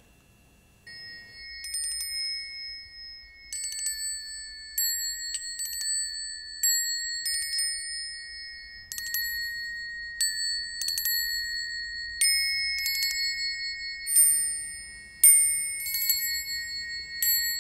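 Three small brass singing bowls held on the palm, struck one after another with a thin wooden stick: about sixteen clear, high ringing strikes starting about a second in, each tone lingering and overlapping the next.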